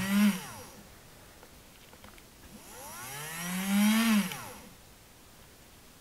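Small brushed DC motor of a cordless rotary multitool, current-limited to two amps, spun by hand and whining up to speed, then running down. A first run winds down in the first second; a second rises from about two and a half seconds in and dies away about two seconds later. The motor will not start by itself and has to be nudged, which the owner takes for a fault in the motor.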